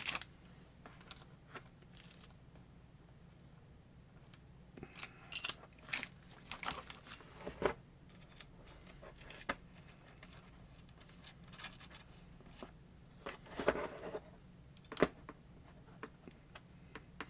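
Small metal clicks and light scrapes as a 1/8 inch bit is fitted into the chuck of a rotary tool attachment and the chuck is worked by hand. The clicks come in two scattered clusters, one about a third of the way in and another later on, over a faint steady hum.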